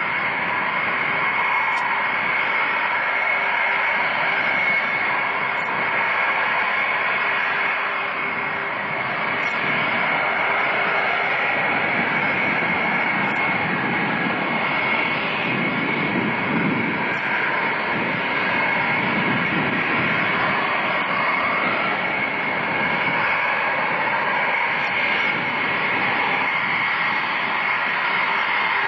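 Concorde's four Olympus 593 turbojets running steadily as the airliner taxis on the ground: an even rushing noise with a steady high whine.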